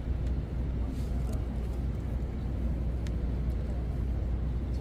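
Steady low rumble of city street noise, with a few faint clicks.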